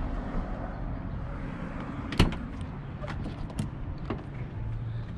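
Clicks and knocks from handling the Mini Cooper's open driver's door, the loudest a sharp click about two seconds in, followed by a few lighter knocks, over a steady low rumble.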